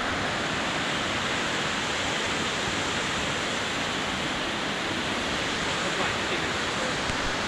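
Waterfall rushing steadily: a dense, even roar of falling water.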